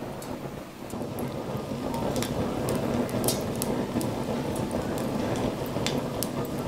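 Tabletop smokeless charcoal grill with its built-in fan blowing air up through charcoal that is catching in the perforated basket. It makes a steady rushing noise that grows louder about a second in, with scattered sharp crackles and ticks from the burning coals.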